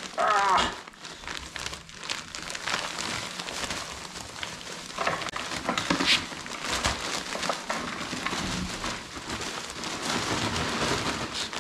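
Plastic bag of topsoil crinkling and rustling as it is worked at by hand to get it open without a knife, with scattered sharper crackles.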